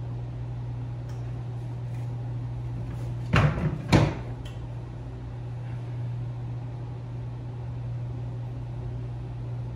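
Two loud knocks about half a second apart, roughly three and a half seconds in, over a steady low room hum.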